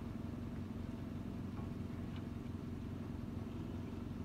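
Vehicle engine idling steadily: a low, even hum that holds the same pitch throughout.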